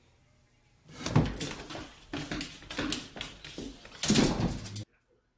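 A run of irregular knocks, bumps and rustling, loudest about a second in and again near the end, cutting off suddenly.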